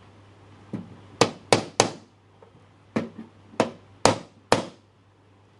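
Sharp wooden knocks from a hammer tapping a hardwood frame-and-panel board: three quick knocks a little over a second in, then four more about half a second apart.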